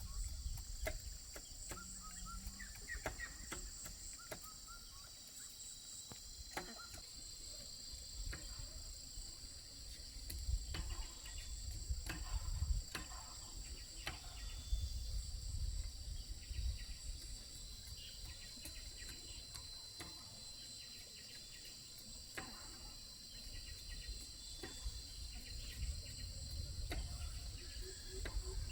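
Insects buzzing in a steady, high, continuous drone, with scattered light clicks and knocks and a low rumble underneath.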